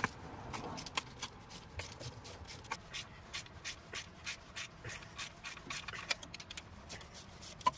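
Hand ratchet wrench clicking in short irregular runs, with light tool scraping, as bolts are backed out of the transmission's rear housing.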